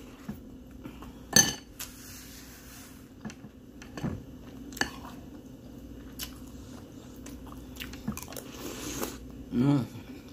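Metal spoon clinking against a ceramic cereal bowl while cereal is eaten: one sharp, ringing clink about a second and a half in, then several lighter taps, with chewing between them. A brief hum of voice near the end.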